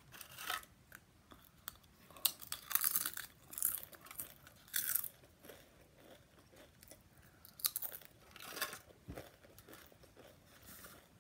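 Someone chewing Doritos tortilla chips, crunching in irregular clusters of bites with quieter pauses between them.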